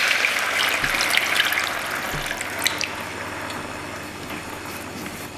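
Water poured from a bowl into a hot stainless steel pan of frying marinated pork belly, splashing and sizzling, to start braising the meat. The hiss fades after about two and a half seconds, with a few light clicks.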